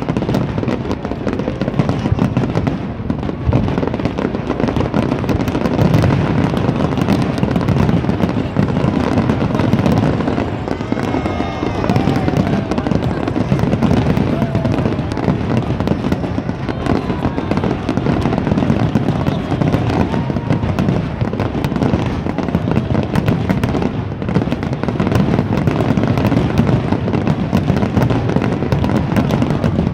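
Fireworks display with many shells bursting at once: a dense, unbroken barrage of booms and crackling with no pauses.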